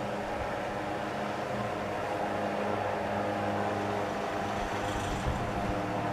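Wizard Citation 12-inch one-speed oscillating table fan running: a steady electric motor hum over the rush of air from the blade.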